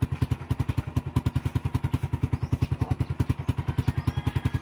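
Motorcycle engine of a sidecar tricycle idling with a rapid, even beat of about a dozen pulses a second.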